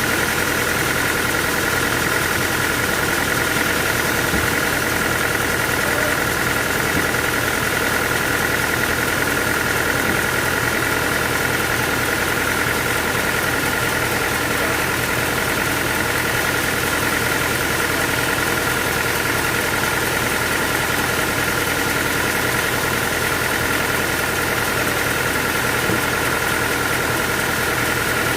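Sawmill machinery running steadily: a constant mechanical hum with a steady high-pitched whine over it, unchanging throughout.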